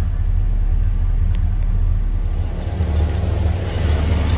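1969 Chevrolet C10's 350 cubic-inch small-block V8 idling steadily just after being started, heard from the cab first and then at the open engine bay from about halfway on.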